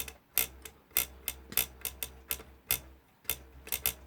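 Small sharp metallic clicks from the parts of a vintage electric alarm clock being handled as its hands are about to be fitted, about three a second and unevenly spaced.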